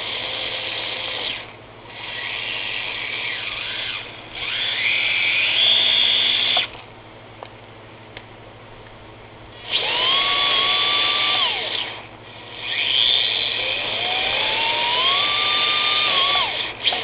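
The twin small electric motors of a Losi Micro Crawler RC truck running in a series of bursts of a few seconds each, with short pauses between them. Their high whine climbs and falls in pitch within each burst.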